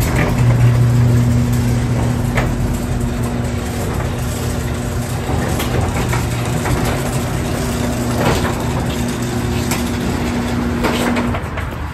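Sectional garage door opening on an electric opener: a steady motor hum under the rattle and grind of the panels running up their tracks, cutting off near the end as the door stops.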